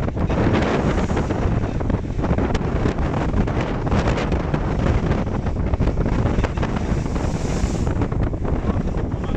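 Strong wind buffeting the microphone in a steady, heavy rumble, over water rushing along the hull of a sailing yacht under sail. A brighter hiss of water comes through about seven seconds in.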